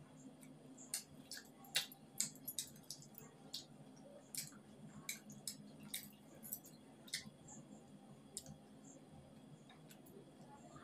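Eating sounds: irregular, sharp, wet chewing and lip-smacking clicks from a mouth full of roti and curry.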